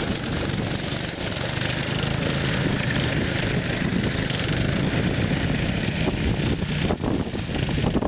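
Small go-kart engine running steadily.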